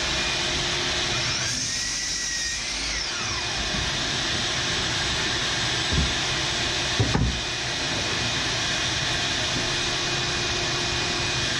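Workshop dust extractor running steadily. About a second and a half in, a power saw spins up and cuts through a board, its pitch dipping and rising. Two knocks come at about six and seven seconds.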